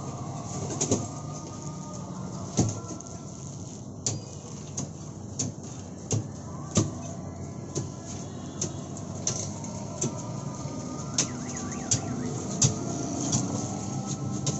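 Street juice-stall ambience: a steady low rumble of traffic with sharp knocks and clinks of utensils and containers coming irregularly, more than a dozen of them.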